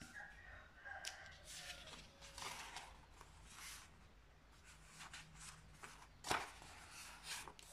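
A sheet of A4 printer paper being handled and folded in half lengthwise on a tabletop: faint, irregular rustling and sliding of the paper, with one sharper, louder crinkle about six seconds in.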